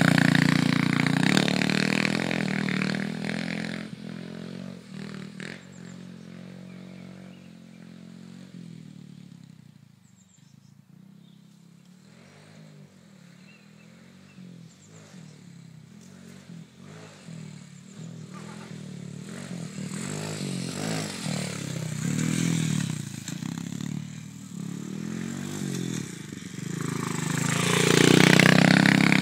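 Mini dirt bike engine running with its pitch rising and falling as the rider works the throttle. It is loud at first, fades as the bike rides away over the jumps, then grows loud again as it comes back past close near the end.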